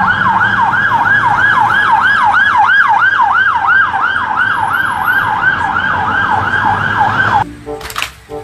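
Police van siren on a fast yelp, its pitch sweeping up and down about three times a second, cutting off suddenly about seven seconds in.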